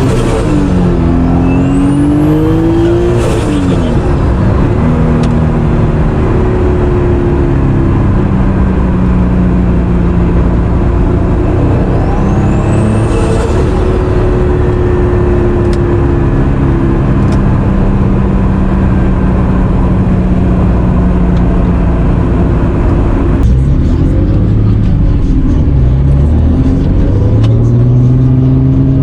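Turbocharged Honda NSX 3.0 C30A V6, fitted with a BorgWarner EFR 7670 turbo, driving under load. The engine pitch climbs, drops, holds steady for a long stretch, then dips and climbs again near the end. A high rising whistle from the turbo spooling up comes through a few times in the first half.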